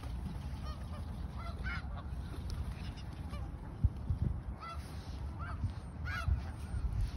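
A flock of snow geese honking: many short, scattered calls from birds near and far, over a steady low rumble.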